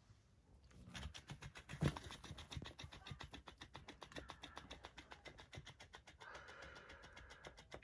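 An electric flopping-fish cat toy, its motor-driven tail flapping in a fast, even patter of about nine strokes a second, starting about a second in. There is a louder thump about two seconds in, and a higher rasping sound joins about six seconds in.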